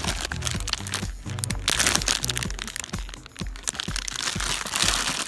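Background music with a steady beat and a repeating bass line, with crackling and crinkling noise over it that grows thicker about two seconds in.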